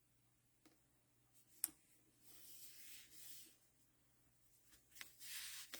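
Faint rustling and sliding of card stock being handled, in two soft stretches, with one sharp click about a second and a half in.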